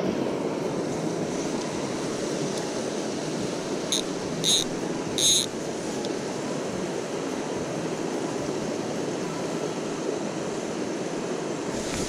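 Mountain stream water flowing steadily over rocks. About four to five seconds in, three short high chirps sound over it.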